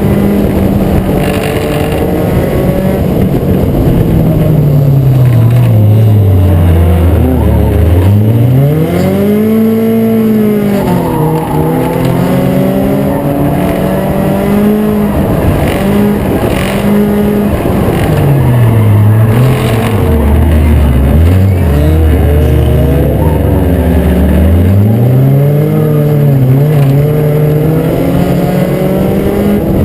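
Four-cylinder compact race cars running hard on an oval track. One engine dominates. Its pitch drops over several seconds as it slows for a turn, then climbs as it accelerates out, and the pattern happens twice. Other cars' engines are heard fainter underneath.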